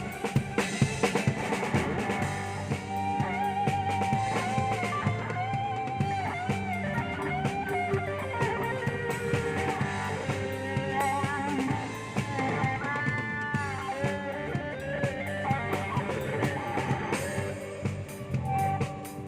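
A band playing: a drum kit keeps a steady beat of snare and cymbal hits under a guitar melody line with bent, wavering notes.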